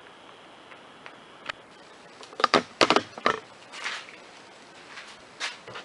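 A run of sharp clicks and light taps, loudest in a quick cluster from about two and a half to three and a half seconds in, with a few scattered ones before and after.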